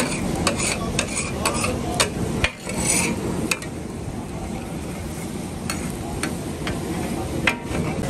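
Two metal spatulas clanking and scraping on a large flat iron tawa as chicken is chopped and turned on it, over steady sizzling of the meat in oil. The clanks come in a rapid run for the first few seconds, then as a few scattered strikes.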